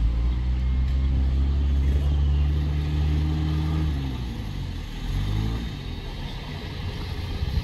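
A pickup truck's engine running close by with a steady low hum, then dropping in pitch and fading about four seconds in as it drives past.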